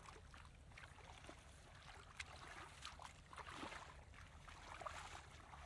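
Faint, irregular splashing and sloshing of shallow muddy water as people wade through it and grope in it with their hands and feet.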